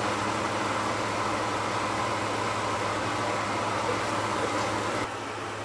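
Puffball mushroom slices sizzling in butter in a frying pan, over a steady motor hum. The sound drops in level about five seconds in.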